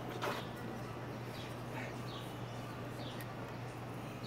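Birds chirping, short falling chirps about once a second, over a low steady hum. A brief sharp knock just after the start.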